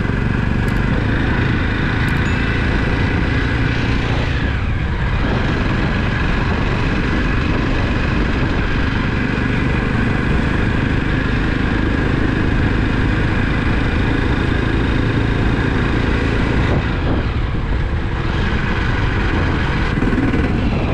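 Motorcycle engine running steadily under way, mixed with wind rush. The engine note dips briefly twice.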